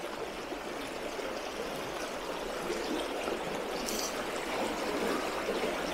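Shallow mountain river running over stones: a steady sound of flowing water.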